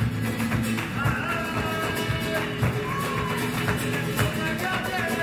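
Live flamenco music: acoustic guitar and cello under a gliding sung melody, with sharp rhythmic palmas handclaps and the dancer's shoes striking the stage.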